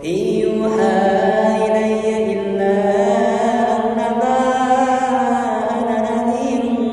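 A young man's voice reciting the Qur'an in the melodic, chanted style into a microphone. It is one long phrase that glides up at the start and is then held near a steady pitch with ornamented turns, without a break.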